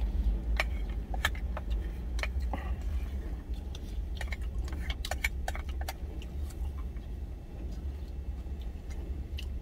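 A spoon scraping and clicking against the inside of a plastic insulated food jar as the last of the soup is scooped out, in irregular short clicks and scrapes. Underneath runs the low, steady hum of the truck's engine idling.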